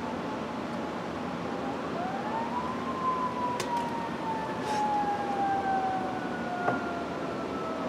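A siren wails, rising about two seconds in and then falling slowly for the rest of the stretch, over a steady background hiss with a few faint clicks.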